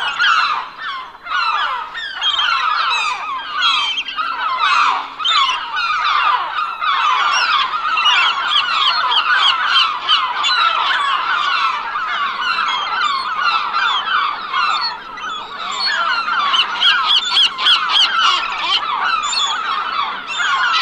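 Flock of seagulls calling together, many overlapping squawks and cries without a break.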